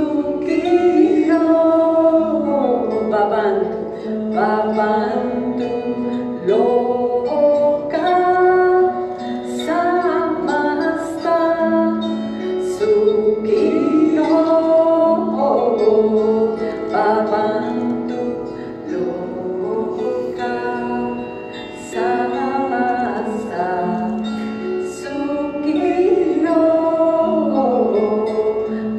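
Live ensemble music: a voice singing a gliding melody over sustained lower notes, with sharp percussion strokes now and then.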